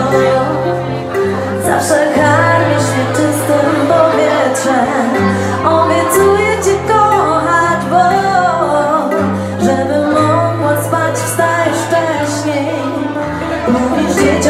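Live acoustic band playing a pop song: a woman sings over strummed acoustic guitars, with low held bass notes underneath.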